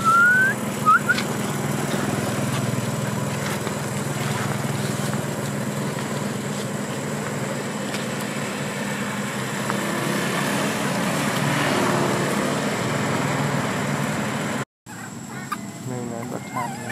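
A steady low mechanical hum, like an engine running, throughout. Over it, a baby macaque gives a short rising squeal and two quick chirps in the first second. After a brief dropout near the end, the hum is gone and several short monkey calls are heard.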